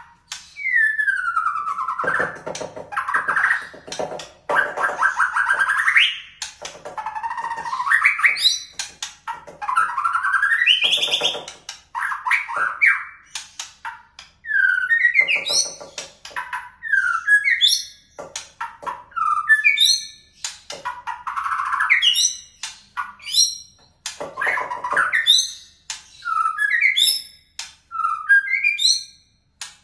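White-rumped shama (murai batu) singing a long varied song, with canary-style phrases in it: sweeping downward whistles, buzzy rattling stretches, and from about halfway a quick series of short rising chirps.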